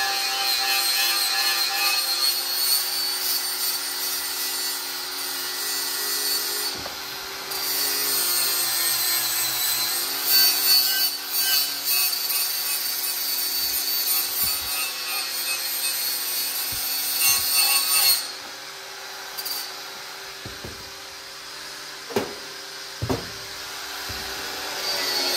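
Cordless angle grinder with an abrasive flap or Scotch-Brite-type disc running against sheet-metal engine tin, a steady high whine with rubbing. It stops about 18 seconds in, two knocks follow, and the grinder starts again near the end.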